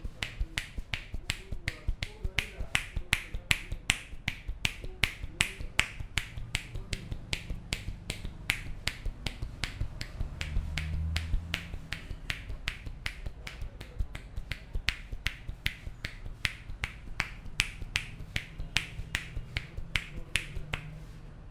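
Hands of an Indian barber's head massage making sharp clapping snaps on the head in a quick, steady rhythm, about three a second.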